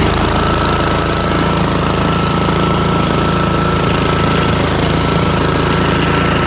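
Honda HRX217 lawn mower's single-cylinder engine running steadily just after starting, with a thin, steady high-pitched whine over the engine note.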